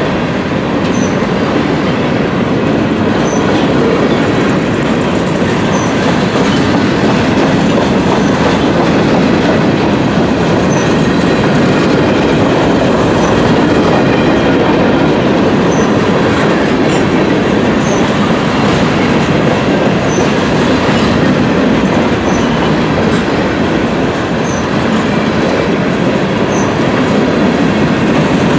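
Freight train of covered hopper cars rolling past: a steady, loud rumble and clatter of steel wheels on the rails, with brief faint high squeaks every couple of seconds.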